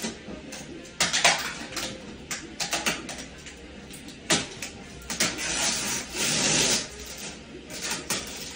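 Clear plastic packaging wrap crinkling and rustling in irregular bursts as it is pulled off by hand, with sharp crackles about a second in and just after four seconds, and a longer rustle toward the end.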